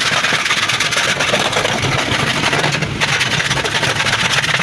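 A small motor running steadily with a fast rattle.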